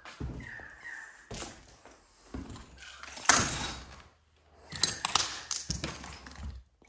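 Footsteps on a debris-strewn floor with a series of irregular knocks and thuds, the loudest a sharp thump about three seconds in.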